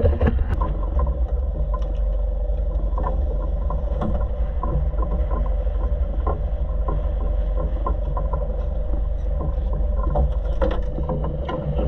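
Volvo Penta boat engine running steadily, a constant low hum under the sound of the moving hull, with scattered light clicks and knocks on top.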